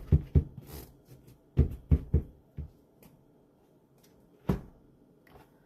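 Household handling clatter: a run of short knocks and clunks, several in quick succession at the start and again around two seconds in, with one last knock about four and a half seconds in.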